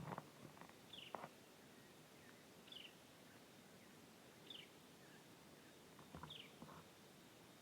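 A bird's short high call falling in pitch, repeated faintly about every one and a half to two seconds, with a few soft clicks in between.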